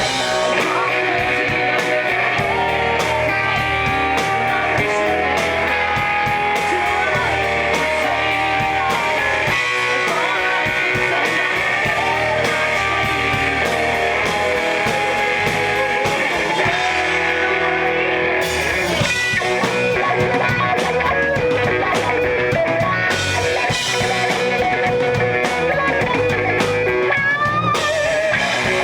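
A rock band playing live, with electric guitars to the fore over bass and drums.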